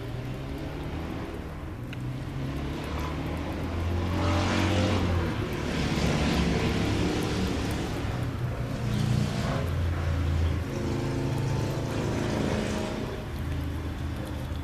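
An engine running, its low hum swelling and fading several times.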